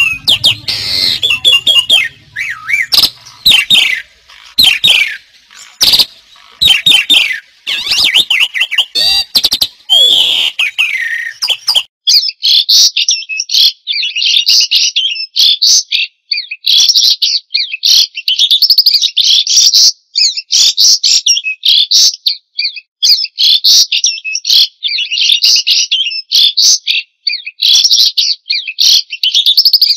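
White-rumped shama singing loudly. It gives varied whistled phrases and gliding notes for about the first twelve seconds, then switches to dense, rapid chattering phrases repeated with short pauses.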